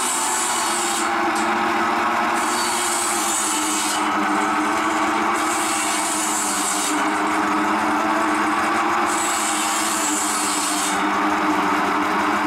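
Belt-driven circular saw bench cutting a log into short rounds: a hissing, rasping burst each time the blade bites through the wood, about five cuts of a second or two each, over the steady drone of the saw and its belt drive.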